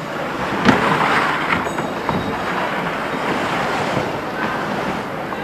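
Jacket fabric rubbing and scuffing over the microphone of a camera carried in a pocket while its wearer walks: a steady rough noise, with one sharp knock within the first second.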